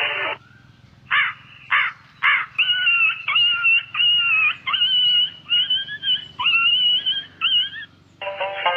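A rapid series of high animal calls: three short harsh ones, then about nine whining calls that bend up and down in pitch. Background music cuts out just after the start and comes back near the end.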